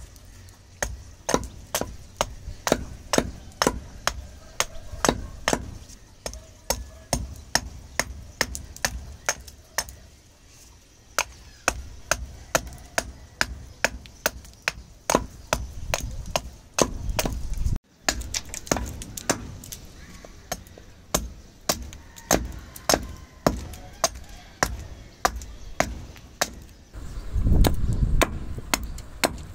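Hatchet hewing a dried Lapsi (Choerospondias axillaris) wood spoon blank on a wooden chopping block: a steady run of sharp chopping strikes, about two a second. There is a brief low rumble near the end.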